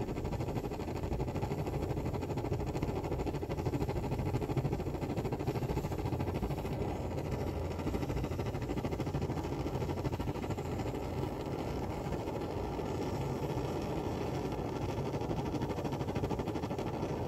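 Vintage East German Barthel benzine (petrol) camping stove burning, its pressurised burner giving a steady, even rushing noise. The burner has caught with a blue flame on the third attempt after priming.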